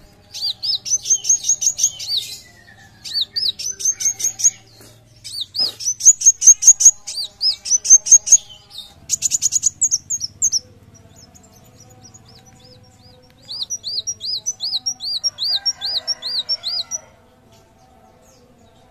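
Van Hasselt's sunbird (kolibri wulung) singing: several quick series of high, sharply arched chirps, with a fast rattling trill near the middle and another run of arched notes near the end.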